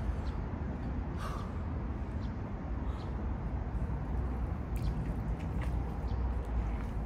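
Outdoor ambience: a steady low rumble under a haze of noise, with faint short high chirps. About five seconds in come a few light taps and splashes as hands are set down on wet, puddled pavement.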